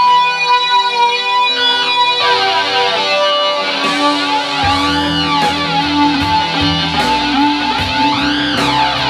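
Ibanez JS140 electric guitar playing an improvised lead line of held notes with vibrato over a hard rock ballad backing track. A Cry Baby wah pedal sweeps the tone up and back down twice, about halfway through and near the end.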